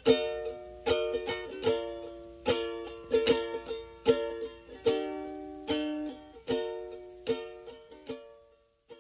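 Background music of plucked-string notes, each starting sharply and ringing away, one or two a second, fading out shortly before the end.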